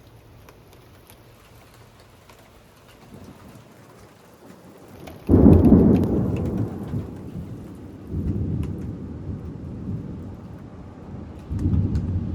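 Thunder: a sudden loud rumble about five seconds in that rolls off slowly, followed by two more rolls of thunder about eight and eleven seconds in, over a faint steady hiss with scattered ticks.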